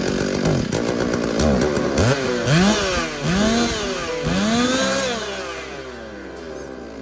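Stihl MS382 two-stroke chainsaw engine running and revved up and let fall back about four times in quick succession, then easing down to a lower, steadier speed near the end.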